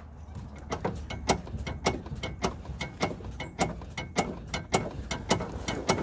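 Rapid, repeated sharp clicks and clunks, several a second, from the front suspension of a 2010 Hyundai Elantra as the car is worked back and forth. The clicking comes from a worn sway bar link.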